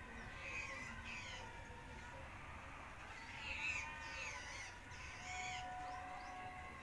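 A bird calling: a couple of short calls about a second in, then a run of calls from about three and a half to five and a half seconds in.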